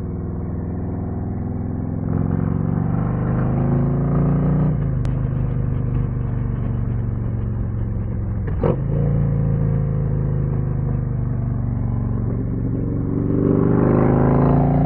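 Harley-Davidson Street Glide ST's V-twin running through a custom C3 Vtwin 2-into-1 exhaust with a titanium muffler, heard while riding. The revs climb for a couple of seconds and drop suddenly, then the engine holds steady before climbing again near the end.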